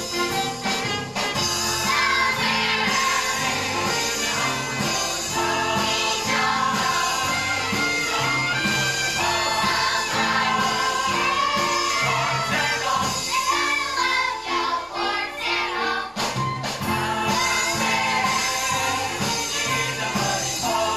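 A musical-theatre number: a group of voices singing together over a band accompaniment, with a brief thinning of the music about two-thirds of the way through.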